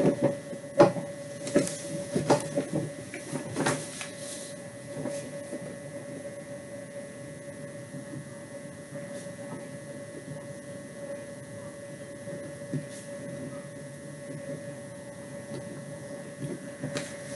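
A few knocks and rustles close to the microphone in the first few seconds as a person moves right in front of the webcam, then a steady room hum with a constant mid-pitched tone.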